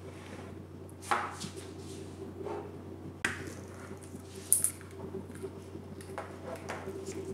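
Drink cartons, a bottle and a ceramic mug being set down on a table and a plastic ice cube tray handled: a few scattered light knocks and clinks over a steady low hum.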